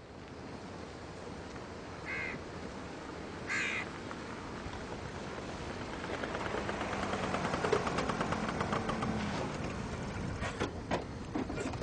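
A crow caws twice, about two and three and a half seconds in. Then small motor scooters run up and pull to a stop, their engines humming, followed by a few sharp clicks near the end.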